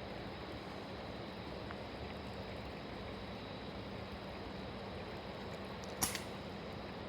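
Steady, faint background noise, with one short sharp sound about six seconds in.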